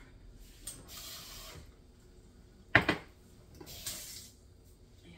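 Kitchen sink tap run twice briefly, a short hiss of water each time, with one sharp knock between them, the loudest sound.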